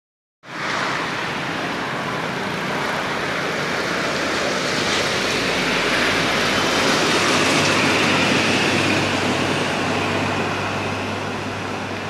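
Steady road traffic noise from vehicles on the road, growing a little louder partway through and easing off near the end.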